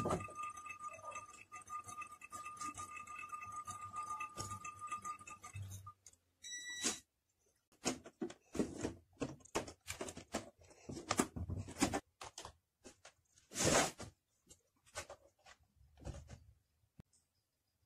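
A steady high electronic whine that stops about six seconds in, followed by a short electronic beep. After that come irregular small clicks, taps and rustles of hand work at a bench, with one brief hiss-like burst near the end.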